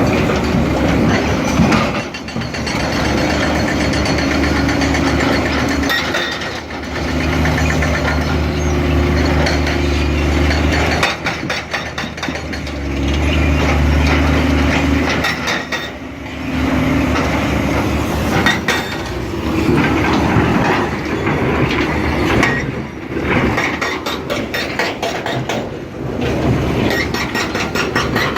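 Caterpillar 345B hydraulic excavator running, its diesel engine note swelling and easing several times as it works, with scattered metallic clanks.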